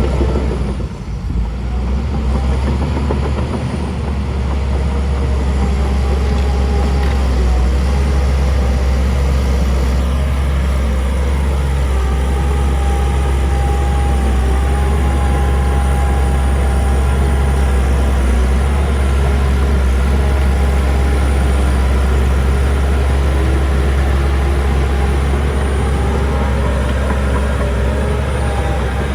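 Heavy diesel earthmoving machinery running steadily with a deep engine rumble, with a faint whine that drifts up and down in pitch. The level dips briefly about a second in.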